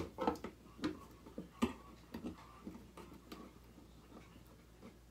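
Irregular light clicks and taps of electrical wires being handled and pulled through the hole of a light-socket fitting, several in the first two seconds and fewer after.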